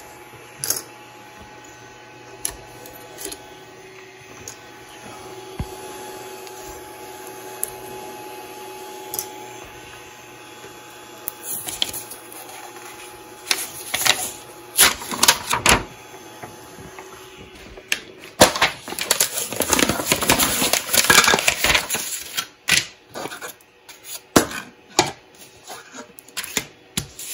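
3D printer humming steadily, then irregular clicks and a few seconds of dense crackling as the freshly printed plastic lid is pried and peeled off the print bed, followed by sharp knocks as the lid is handled.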